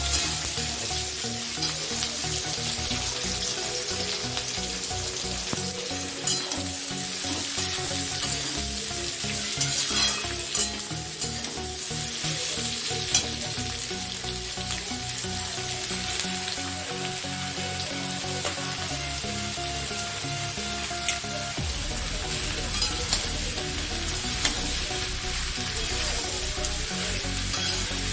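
Whole spices, garlic and chillies sizzling steadily in hot oil in a pan, with a spatula now and then clicking against the pan as they are stirred.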